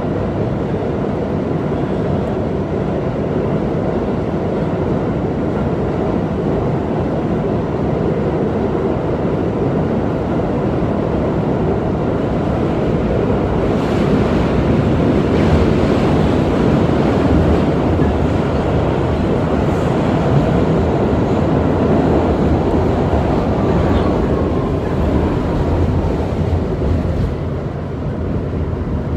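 Moving New York City subway car heard from inside: a steady rumble of wheels on the track, louder through the middle stretch. A faint falling whine comes in near the end.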